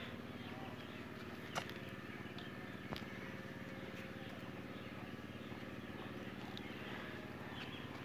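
Aseel rooster pecking grain from a plastic bowl: scattered sharp clicks of the beak, two louder ones about a second and a half and three seconds in, over a steady low background hum.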